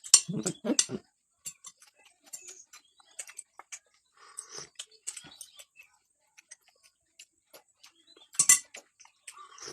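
Scattered light clicks and taps of a spoon and fork against a plate while eating, with one louder, brief noise near the end.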